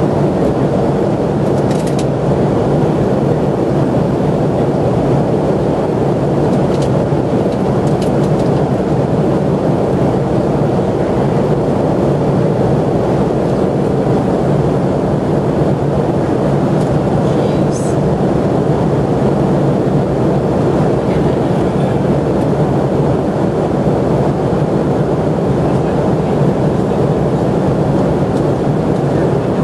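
Steady airplane cabin noise in flight, an even hum of engines and airflow, with a few faint clicks scattered through it.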